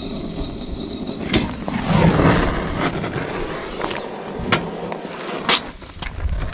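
Sticks of paraffin-soaked kindling being pushed into the firebox of a miniature steam traction engine and catching light, with a few sharp knocks of wood against the firebox over a steady low rumble.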